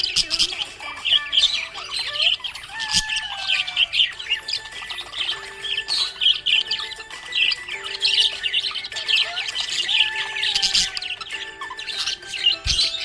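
Budgies chirping in quick, continuous high chirps and short squawks.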